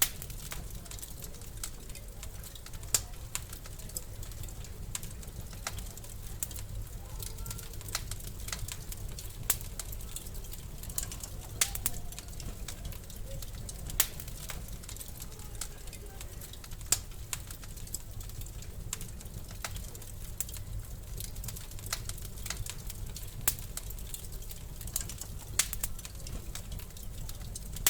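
Wood fire in a fireplace crackling, with irregular sharp pops and snaps, a few louder than the rest, over a steady low rumble.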